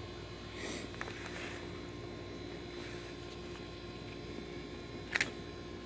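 Quiet room tone with a steady low hum, a few faint scrapes of a plastic fork in food on a foam plate, and one short sharp click about five seconds in.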